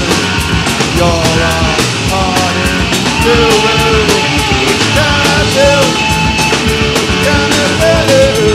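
Punk rock band recording: electric guitars, bass and a steady drum beat, with a lead melody bending up and down over it.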